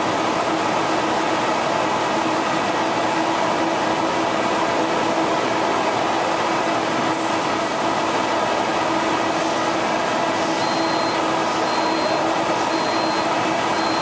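EFI H652 wide-format flatbed digital printer running: a steady mechanical whir with a constant low hum. From about ten seconds in there are short high beeps about a second apart, four of them.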